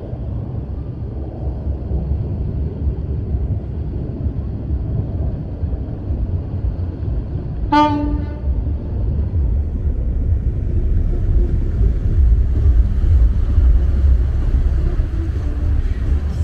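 Pirate-ship-style excursion boat passing close by, with a steady low rumble of engine and water. About eight seconds in a boat horn gives one short toot.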